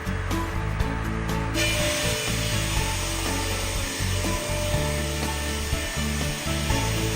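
Stilet BSP-420 through-feed beam-sawing machine cutting a log into a beam: a steady sawing noise that sets in suddenly about a second and a half in and runs on evenly. Background music plays underneath.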